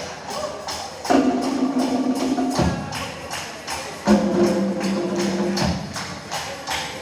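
Music with a steady percussive beat and held low notes that shift in pitch every second or two.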